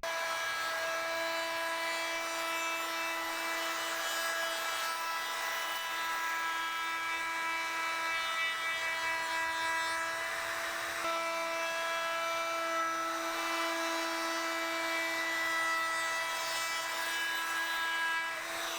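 Handheld electric wood router running at high speed, a steady high-pitched whine, while routing the outside edge of a wooden piece.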